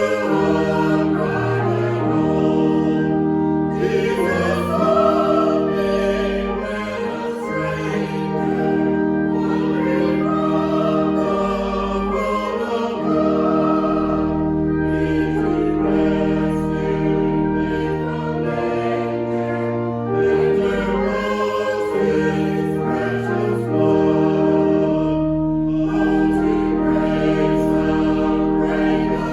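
Choir singing a hymn over held chords from a sustained keyboard accompaniment, with a steady bass line.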